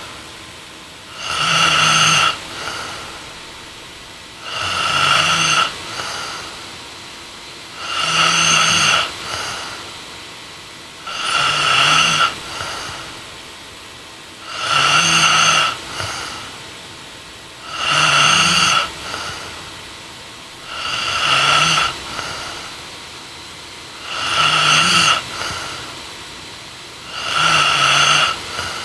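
A young woman snoring in her sleep, with a loud, regular snore about every three seconds and a softer breath trailing off after each one.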